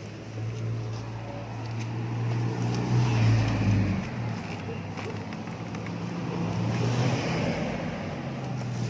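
Street traffic: motor vehicles running and passing close by, their engine hum and noise swelling twice and fading.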